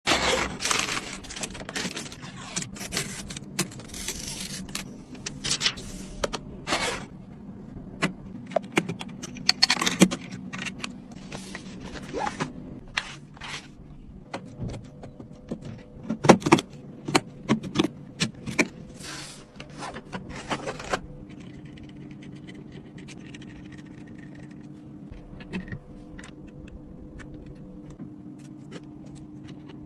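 Hard computer parts being handled and fitted during a PC build: many irregular clicks, taps and short scrapes of plastic and metal. About 21 seconds in these stop, leaving a steady low hum with a few faint ticks.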